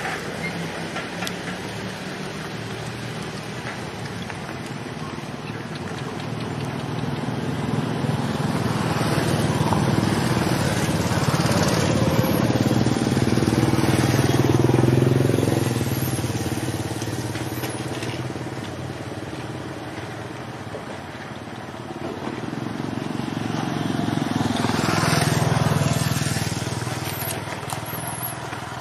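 Engine noise of passing motor vehicles over a steady rumble, swelling and fading twice.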